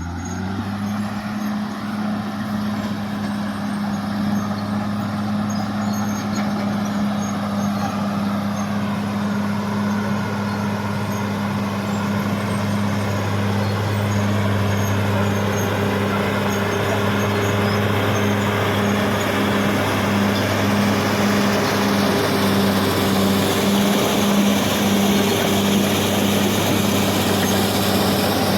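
Caterpillar D6R XL bulldozer's diesel engine running steadily while the dozer works, with a deep, even engine note and a broad mechanical hiss that grows gradually louder.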